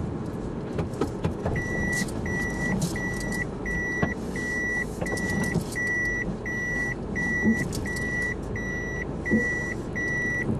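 A car's in-cabin warning beeper sounding evenly, about three beeps every two seconds. It starts about a second and a half in, over the low rumble of the car moving slowly.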